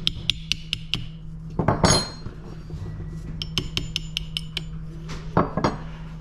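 Small hammer tapping a punch to drive a pin out of an AR-15 lower receiver, metal on metal. An even run of light taps, about four a second, then a louder knock about two seconds in, another quick run of taps, and two heavier knocks near the end.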